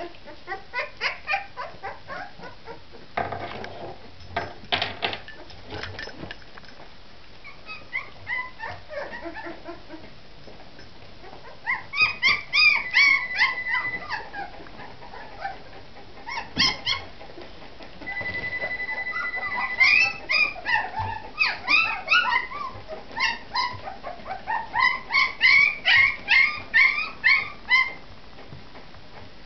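Nineteen-day-old Bergamasco puppies whimpering and squealing: a string of short, high-pitched squeaky cries that come in clusters and grow louder in the second half. A few sharp knocks sound a few seconds in.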